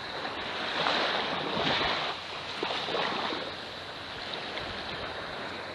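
Surf washing on the beach, mixed with wind on the microphone, swelling and easing a few times.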